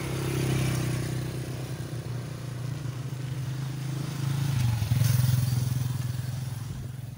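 A motor vehicle's engine running with a steady low hum. About four and a half seconds in its pitch dips briefly, then it grows louder and fades away toward the end.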